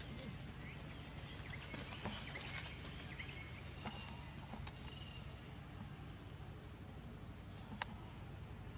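Steady, shrill chorus of insects in the background, holding two high tones without a break, with a few faint short chirps and one sharp click near the end.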